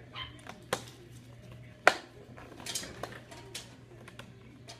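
Kitchen items being handled on a countertop: a series of light clicks and knocks, the loudest a single sharp knock about two seconds in.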